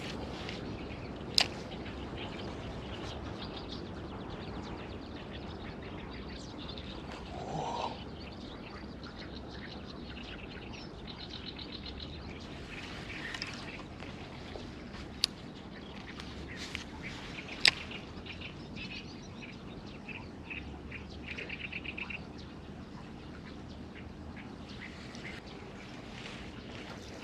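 Open-air ambience with a steady background hiss, and birds chirping and trilling now and then. A few sharp clicks stand out, the loudest about a second and a half in and near two-thirds of the way through.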